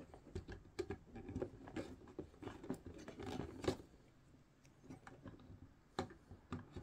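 Faint rustling of power-supply wire bundles and light clicks of plastic connectors being handled, with a couple of sharper clicks partway through.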